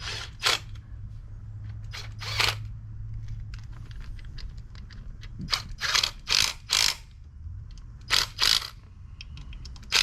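Short scrapes and rattles of metal engine parts and hand tools being handled, about eight brief scrapes coming irregularly, several close together around the middle and again near the end, over a steady low hum.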